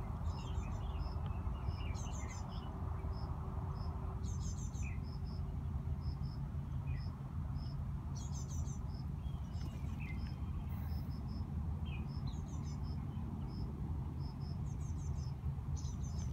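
Wild birds singing short warbling phrases every few seconds over a short high chirp repeated about twice a second, with a steady low rumble underneath.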